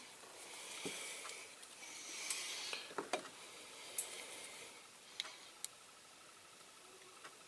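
Light handling noises at a workbench: rustling and scraping for the first few seconds, with several sharp small clicks, a close pair about three seconds in, as the parts of a diecast toy car are handled during reassembly.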